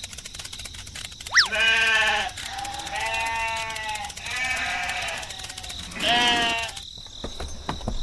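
Livestock bleating: four drawn-out calls a second or so apart. Just before the first call comes a short, sharp chirp that falls quickly in pitch.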